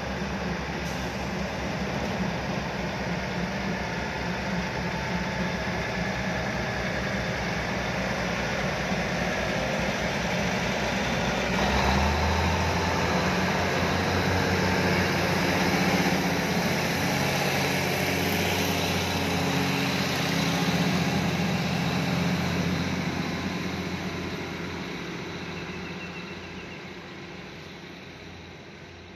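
Diesel railcar express train's underfloor engines running as it pulls out of the halt. The engine note grows louder and lower about twelve seconds in, then fades over the last few seconds as the train moves away.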